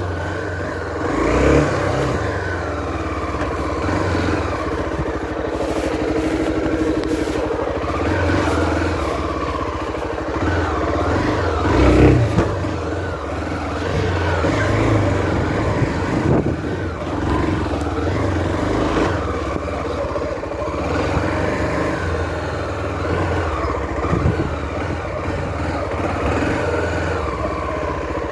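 Honda Tornado 250's single-cylinder four-stroke engine running under changing throttle as the motorcycle is ridden, its pitch rising and falling, with a louder surge of throttle about twelve seconds in.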